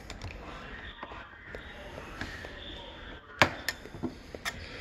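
A few sharp metallic clicks and ticks from spring-clamp pliers and the wire spring clamp on an LG front-load washer's door boot as the clamp is worked into place, the loudest click about three and a half seconds in.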